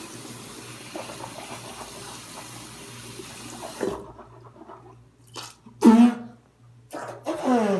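Tap water running into a sink, shut off abruptly about four seconds in. Then a child makes several short throat noises, the last one falling in pitch.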